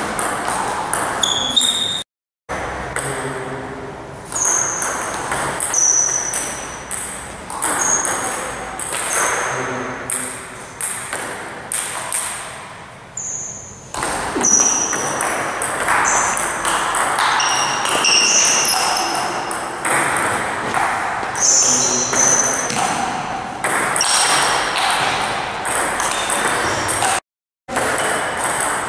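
Table tennis rallies: the ball clicking off the bats and bouncing on the Joola table in a quick, irregular run of sharp pings. The sound cuts out briefly twice, once about two seconds in and once near the end.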